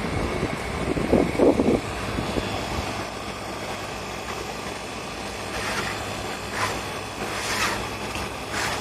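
Steady machinery hum, with metal rattling about a second in and a few short scrapes and knocks near the end as sheet-metal panels of a rooftop HVAC unit are handled.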